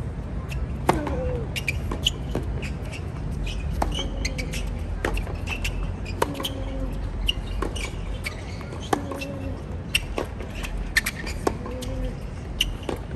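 Tennis rally on a hard court: racket strikes on the ball and ball bounces, sharp knocks about once a second. Several of the strikes are followed by a short vocal sound that falls in pitch, a player's grunt.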